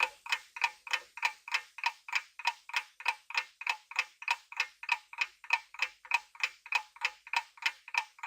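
Clock-tick sound effect ticking evenly, about three ticks a second, as a quiz countdown timer.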